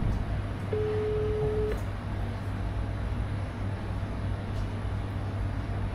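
Mobile phone ringback tone: a single steady beep about a second long, starting a little under a second in, over a steady low rumble.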